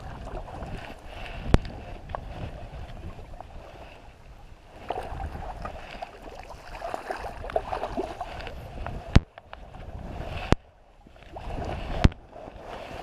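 Wind rumbling on the microphone, with rustling and a few sharp clicks from rod and reel being handled.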